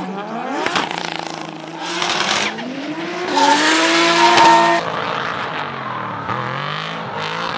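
Nissan Skyline GT-R R33's RB26DETT twin-turbo straight-six revving hard while drifting. The revs climb several times and are held highest and loudest from about three and a half to five seconds in, then drop away.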